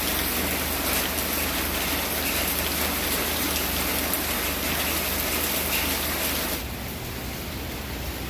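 Steady rain falling, a dense hiss of drops on surfaces. About six and a half seconds in it turns quieter and duller.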